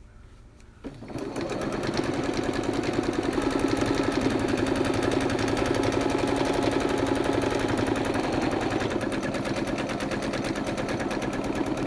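Electric domestic sewing machine stitching a straight seam through layered fabric: it starts about a second in, comes up to speed, and runs steadily with a rapid, even needle rhythm.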